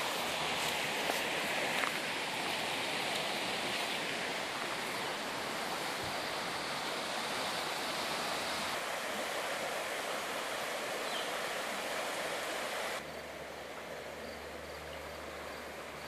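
Steady rushing of a fast river: a continuous hiss of moving water that drops abruptly in level about thirteen seconds in.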